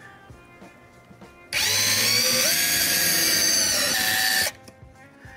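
Cordless drill boring a hole through the brake pedal through a mounting template: the motor whines for about three seconds, starting a second and a half in, steps up in pitch partway through, then cuts off suddenly.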